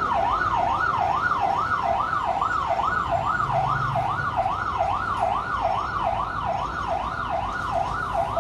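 Emergency vehicle siren in a fast yelp, its pitch sweeping up and down about two to three times a second, over a low traffic rumble.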